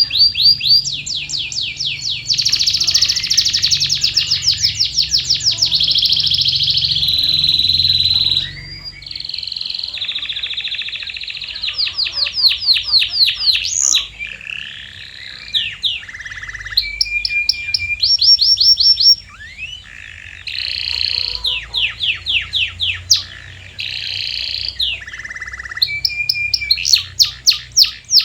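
Domestic canary singing a long, continuous song made of rapid trills. Each run of quickly repeated notes lasts a second or two before the bird switches to a new note type.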